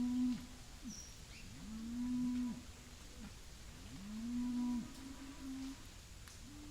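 Cattle mooing: a run of short, even moos about two seconds apart, with a shorter call near the end.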